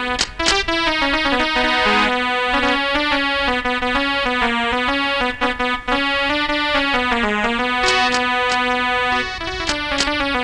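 Instrumental music: a keyboard plays a melody of held notes that step up and down, with a few sharp hits near the start and again near the end.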